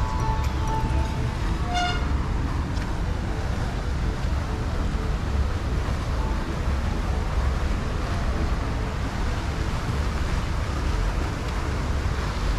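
Outdoor ambience: a steady low rumble, with a brief high toot about two seconds in.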